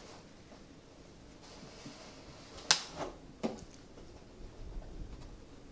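Cardboard tyre packaging being handled: the outer sleeve slid off the inner box with faint rustling, and a sharp tap about halfway through, then a smaller one, as the card is knocked or set down on the countertop.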